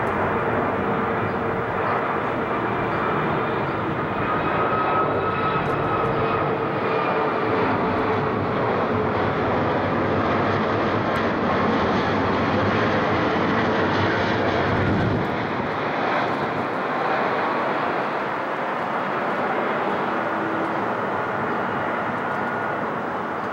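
Swiss Airbus A330-300 with gear down on approach, flying low overhead on its two Rolls-Royce Trent 700 turbofans: a steady jet rush with whining tones that slide slowly down in pitch as it passes, easing off a little after it goes by.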